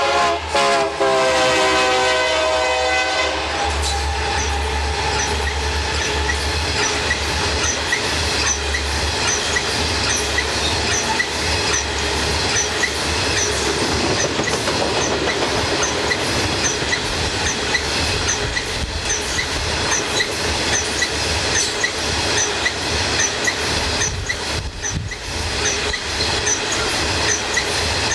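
A Burlington Northern freight train passes. For the first few seconds the diesel locomotive's horn sounds, dropping slightly in pitch before it stops. Then a long string of covered hopper cars rolls by with steady rail noise and a regular clickety-clack of wheels over rail joints.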